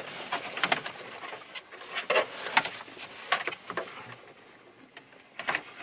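Irregular light plastic clicks and knocks as dashboard trim and its retaining clips are worked loose by hand.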